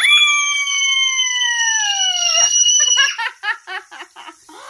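Toddler's long, loud, high-pitched scream, sliding slowly down in pitch for about three seconds, then breaking into quick bursts of giggling laughter.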